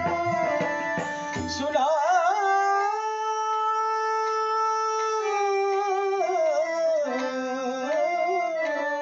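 A man singing the close of a Hindu devotional aarti, drawing out one long held note with wavering ornaments that slides down near the end, over a steady instrumental drone. Drum strokes play under the voice for the first couple of seconds and then stop.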